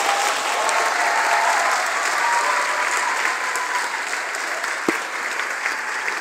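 Audience applauding, with a few voices calling out over it during the first three seconds and a single sharp knock about five seconds in.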